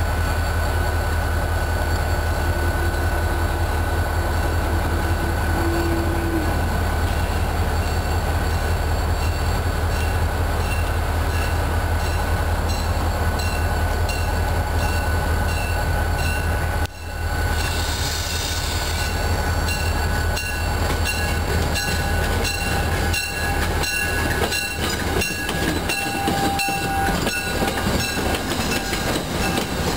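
MBTA diesel commuter train approaching and rolling past close by, with a steady low rumble throughout. From about two-thirds of the way in, its coach wheels clickety-clack over the rail joints in an even rhythm, with a short wheel squeal near the end.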